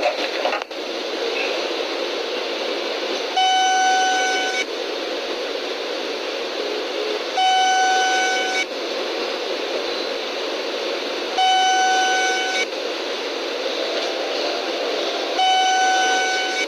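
Seibu 2000 series train door chime: a steady electronic beep about a second long, sounding four times at even four-second intervals over steady train noise.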